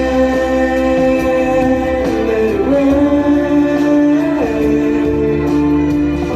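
Ballad music: a voice holding long sustained notes without words, sliding to a new pitch twice, over steady instrumental backing.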